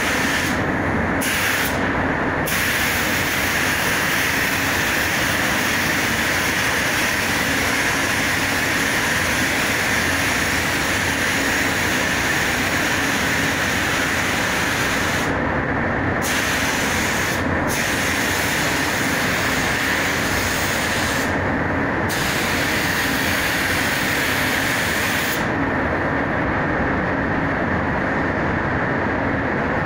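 Paint spray gun hissing as it lays on clear coat, cutting out briefly several times as the trigger is let off and stopping near the end. Under it runs the spray booth's steady rush of moving air, which carries on after the gun stops.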